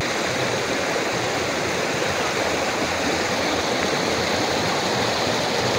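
Steady rushing of flowing water, an even hiss that starts abruptly and holds level.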